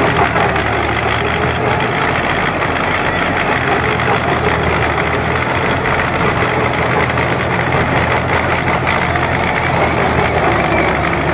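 Farm tractor's diesel engine running steadily under load, driving a trenching machine that cuts a trench in the ground and throws up soil.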